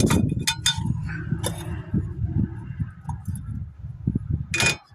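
Metal parts and tools clinking as they are handled: a quick run of sharp clinks at the start, one more about a second and a half in, and a louder clink near the end, over a low rumble.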